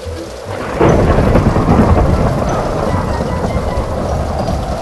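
Rain falling steadily, then a sudden thunderclap about a second in, followed by a long rumble of thunder over the rain.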